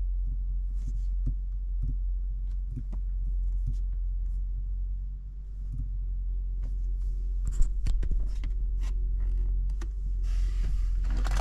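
Steady low hum with scattered light clicks and taps, a sharper click about seven and a half seconds in, as parts and cables are handled.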